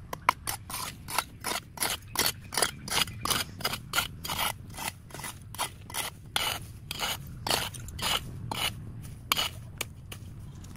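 Rhythmic scraping strokes, about three a second, as of a hand tool dragged over a rough surface, over a low steady rumble.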